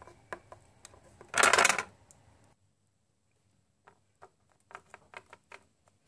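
Light, irregular clicks of a small plastic toy figurine tapped against a hard tabletop as it is hopped along by hand. A short, loud rustling burst comes about a second and a half in, then the sound cuts off abruptly to silence before the tapping resumes.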